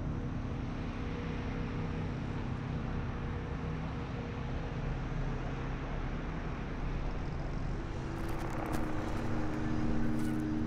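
Steady low rumble and hiss with a low hum. About eight seconds in, a few higher steady tones join.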